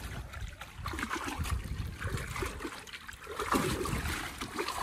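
Water trickling and lapping close around a small barrel raft, then loud splashing right beside it starting about three and a half seconds in.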